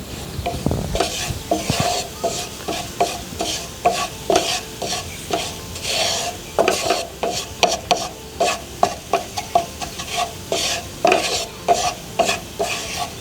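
A utensil stirring and scraping a flour-and-oil roux with garlic in a hot pan, quick repeated strokes about twice a second, with a light sizzle as the flour browns.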